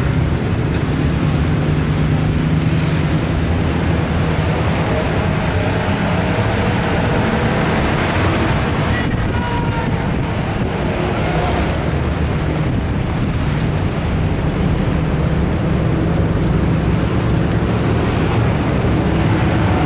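The filming vehicle's engine running steadily at low speed, a low even drone under rumble and wind noise on the microphone.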